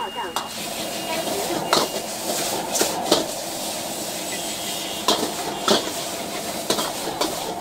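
Noodles sizzling steadily in a hot iron wok as a metal ladle stirs and tosses them, scraping the wok and knocking sharply against it several times.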